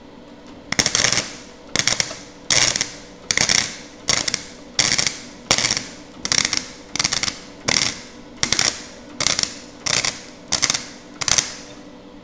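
Gasless flux-core MIG welder (Nagano MIG 130) striking short arcs one after another: about fifteen brief bursts of arc noise, a little more than one a second. Each is a quick tack, stitched into a bead on thin 30-gauge galvanized sheet, because a straight continuous pass would burn through.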